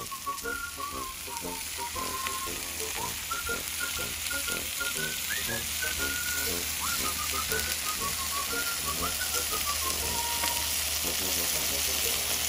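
Marinated chicken thighs and sausages sizzling on a foil-lined grill: a steady hiss that gets a little louder after the first few seconds.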